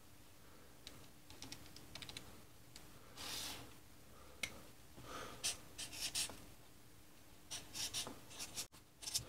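A few clicks of pocket calculator keys being pressed, then a felt-tip marker scratching on notepad paper in several short strokes as numbers are written.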